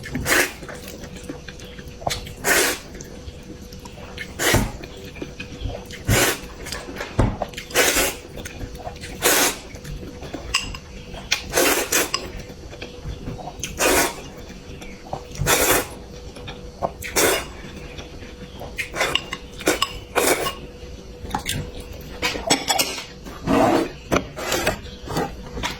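Close-miked eating sounds: short, loud slurps of noodles, roughly one every second or two, with light clinks of utensils on a bowl.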